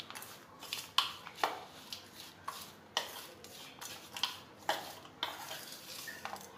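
Hand mixing a dry, crumbly sweet filling of grated coconut, jaggery and powdered roasted gram in a stainless steel bowl. The fingers scrape and rub against the steel in short strokes, about two a second, unevenly spaced.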